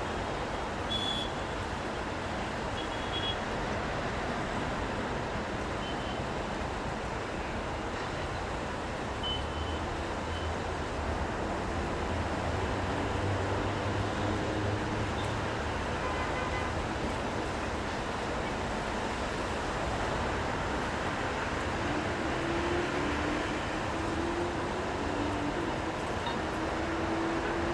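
City street traffic in the rain: a steady wash of rain and tyre noise, with a vehicle's low engine rumble passing in the middle and a slowly rising engine tone near the end.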